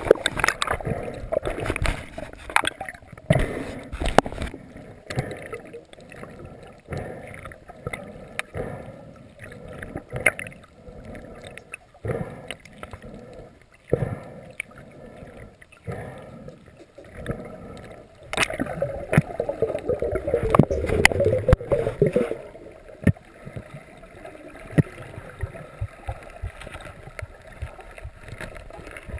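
Muffled underwater sound picked up by a submerged camera: a wash of water noise broken by many small clicks and knocks. About two-thirds of the way through it grows louder and rougher for a few seconds.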